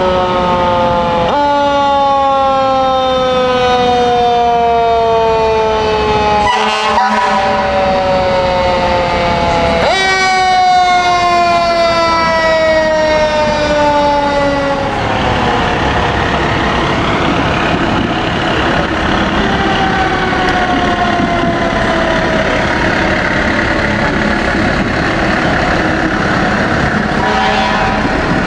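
Fire engine sirens wailing: each wail jumps up in pitch and then slides slowly down over several seconds, twice. About halfway through they die away into the steady rumble of the passing fire trucks' engines.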